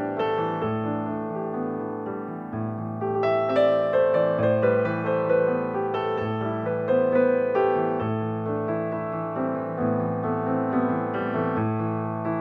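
Background piano music: a slow melody of struck notes over low sustained bass notes that change about every second and a half.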